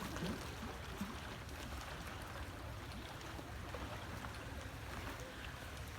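Steady wash and splash of pool water stirred by a swimming, playing elephant.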